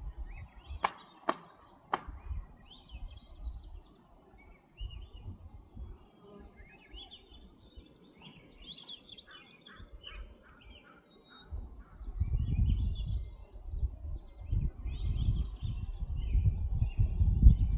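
Small birds chirping and twittering on and off. Three sharp clicks come in the first two seconds, and from about twelve seconds in, gusty wind rumbles on the microphone.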